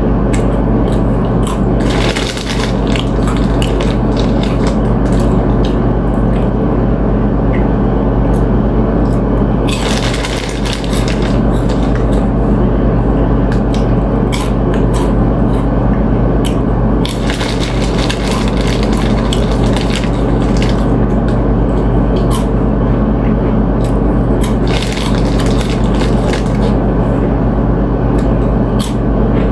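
Close-miked chewing and crunching of chips with ceviche: irregular crisp cracks and wet chewing over a steady low hum.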